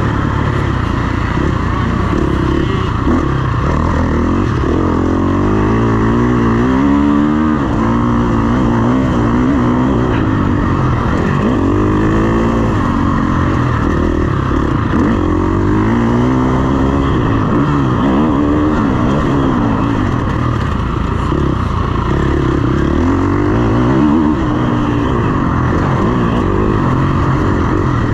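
KTM 350 SX-F's single-cylinder four-stroke engine under hard riding, its pitch sweeping up and dropping back every second or two as the throttle is opened and closed.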